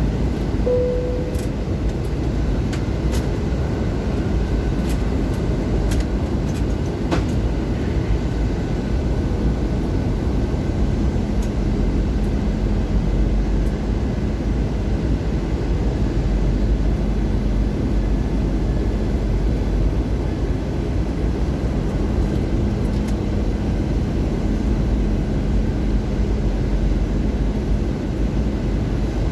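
Steady cabin noise of an Airbus A320 in descent, the engines and airflow giving an even rumble and hiss, as the slats extend. A short faint tone sounds about a second in.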